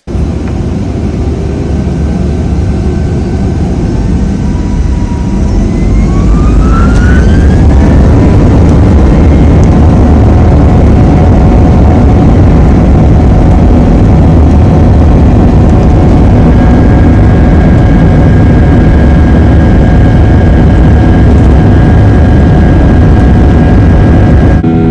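Airliner jet engines heard from inside the cabin, spooling up to takeoff power. The noise builds over the first several seconds as rising whines climb in pitch, then settles into a loud, steady rumble with a few held whine tones.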